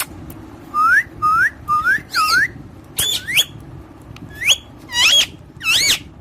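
A pet parrot whistling: a run of about eight short, swooping whistled notes that rise and curl over, with brief pauses between groups.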